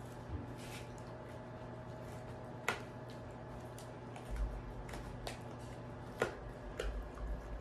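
Belgian Malinois dogs gnawing on bones: scattered sharp clicks and cracks of teeth on bone, a second or more apart, over a steady low hum.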